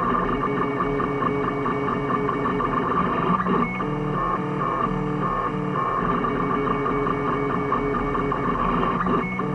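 3D printer stepper motors whining at shifting pitches as the print head makes back-and-forth moves, each move a short held tone.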